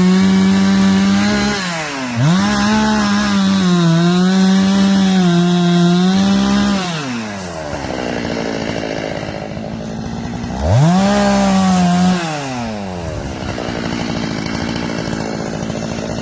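Two-stroke chainsaw revved to high speed three times, dropping back toward idle after each burst. During the long second burst the pitch sags a little and recovers.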